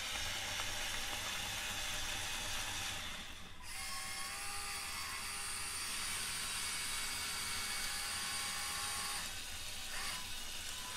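Electric motors and plastic gear trains of a LEGO Technic Liebherr R 9800 excavator model whirring steadily as it drives and moves under app control. The whir drops out briefly about three and a half seconds in, comes back at a different pitch, and shifts again near the end.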